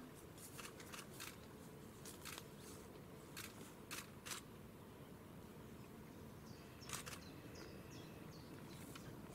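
Camera shutters clicking in scattered single and paired clicks from several photographers, over a faint quiet outdoor background; the clicks come mostly in the first half, with one more near the middle. A few faint high chirps near the end of the clicking.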